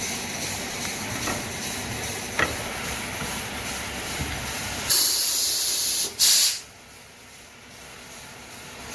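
Automatic CNC wood lathe running steadily, with a couple of light knocks, then two loud bursts of hiss about five and six seconds in, after which it goes quieter.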